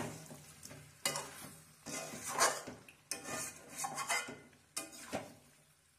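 Spatula scraping and stirring chicken pieces in thick curd gravy in a metal wok, a scraping stroke about every second, with the food sizzling in the pan.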